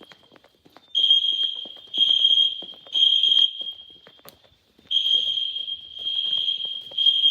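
Building fire alarm horns sounding the temporal-three evacuation signal. About a second in come three high-pitched half-second beeps, then a pause, then three more.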